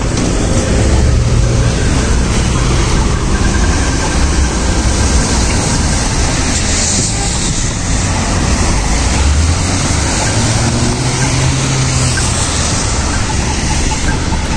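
Loud, steady outdoor noise of a wet city street in a sudden rain shower, with traffic on the wet road and an uneven low rumble that swells and fades.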